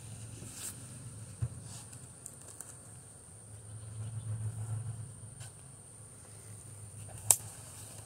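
A steady high-pitched insect chorus, crickets or similar, with a low hum that swells about four seconds in. A few sharp knocks come through it, the loudest a little after seven seconds, as wooden hive boxes are handled.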